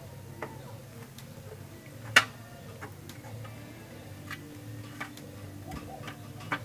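Metallic clicks and clinks from a motorcycle's rear drive chain and sprocket being handled during rear-wheel refitting. They come irregularly, about one every half second to a second, with one much louder click about two seconds in.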